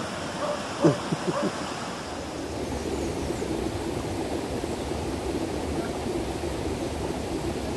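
Steady rush of running water, a stream, with a few short knocks near the start.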